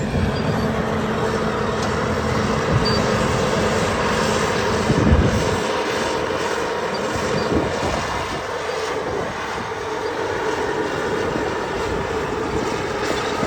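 Caterpillar bulldozer diesel engine running steadily while shaping dirt, with a brief louder swell about five seconds in.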